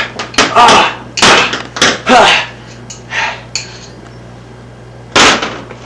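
Hand hammer striking with a clanking, metallic ring: about half a dozen irregular blows, with short vocal sounds among the first few and a pause before a last strike near the end.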